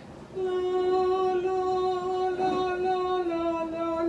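A voice singing a long held note that starts about half a second in and steps slightly lower near the end.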